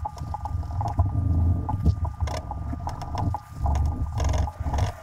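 Fine 0000 steel wool rubbed by gloved fingers over the steel lever of a Henry .22 lever-action rifle: an irregular scratchy scrubbing with small clicks and knocks, carding off surface rust after a boiling.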